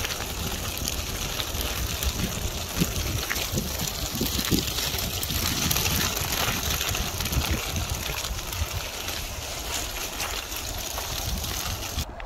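Steady noise of running, trickling water with a low rumble underneath. The hiss drops away suddenly near the end.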